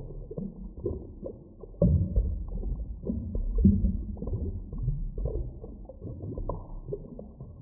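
Muffled underwater bubbling and gurgling over a low, steady rumble, with irregular bursts of bubbles, the loudest about two seconds and three and a half seconds in.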